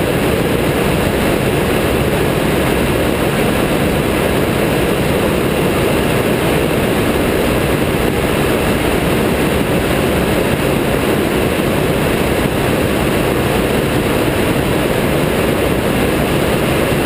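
Engine and pusher propeller of a weight-shift trike ultralight running steadily in cruise flight, a loud, even drone that doesn't change.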